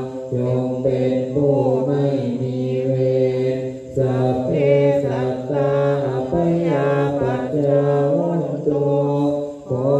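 Group of Buddhist monks chanting Pali in unison on a low, nearly level pitch, with short breaks for breath about four seconds in and just before the end.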